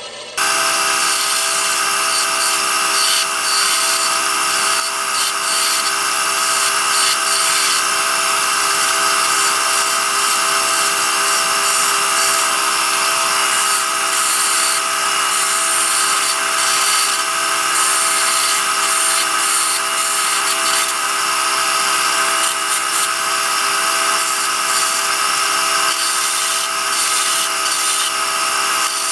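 Scroll saw switched on about a third of a second in and running steadily, its blade cutting a thin wooden spoon blank; a constant hum with several steady tones over a hiss.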